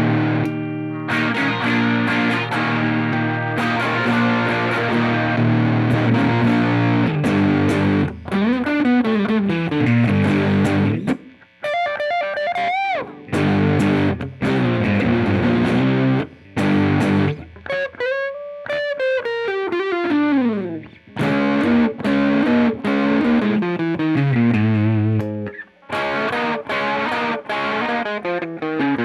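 Squier Paranormal Cyclone electric guitar with Josefina hand-wound Fat 60s pickups, played overdriven through a Hotcake pedal into a Strymon Iridium: ringing chords, then in the middle several swooping pitch bends that dip and rise, before the chords come back.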